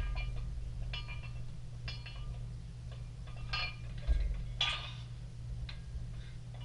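Weight plates on a pair of plate-loaded dumbbells clinking against each other and their handles as they are lifted and curled: a series of short metallic clinks, about one a second.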